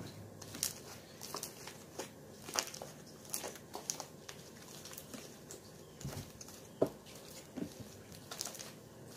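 Slime being squeezed and kneaded by hand, giving irregular small wet clicks and crackles, with one louder pop about seven seconds in.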